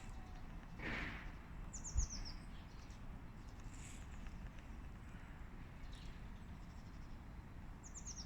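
Small bird giving two short runs of quick, very high chirps, each run falling in pitch, about two seconds in and again near the end, over faint outdoor background. A dull thump about two seconds in.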